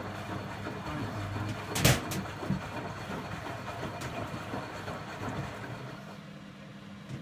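Indesit 092 washing machine running an empty maintenance wash, with a steady hum and one loud clunk about two seconds in, then lighter clicks. The noise drops after about six seconds, leaving a low hum.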